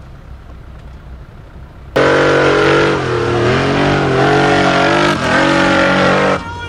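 Off-road race buggy's engine revving hard at full throttle while the car climbs a steep dirt slope. It is fainter for the first two seconds, then loud from about two seconds in, its pitch wavering up and down as the tyres spin and grip. It drops off abruptly near the end.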